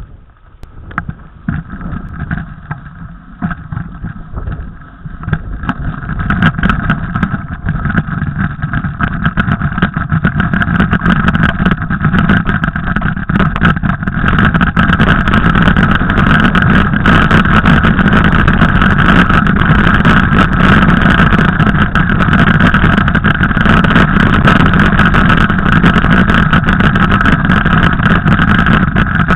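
Mountain bike ridden along a snowy trail, heard on a camera carried by the bike or rider: rushing wind and rattling on the microphone with crunching and knocking from the ride. It builds up over the first several seconds as the bike gathers speed, then holds steady and loud.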